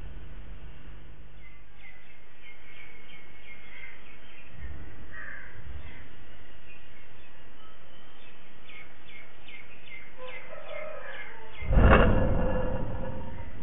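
Small birds chirping in quick repeated calls, with crows cawing near the end. Near the end comes a sudden loud boom with a deep rumble that fades over a second or two: the sound that went with the reported earthquake tremor, heard through a CCTV camera's microphone.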